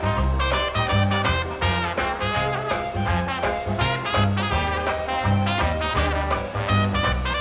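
Swing-style background music with brass and a steady beat.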